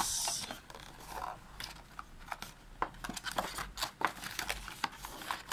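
Handling of a smartphone's cardboard and plastic packaging: a brief plastic crinkle at the start, then scattered small clicks and scrapes as a cardboard accessory compartment is lifted open.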